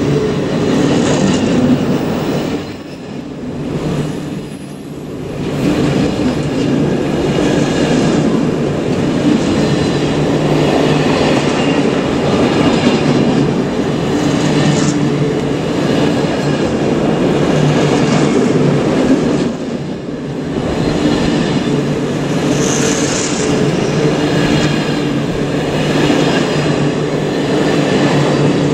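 Container wagons of an intermodal freight train rolling past at speed: a steady, loud rumble of steel wheels on rail with clatter over the rail joints, briefly dipping twice about three and five seconds in. A short high-pitched wheel squeal about two-thirds of the way through.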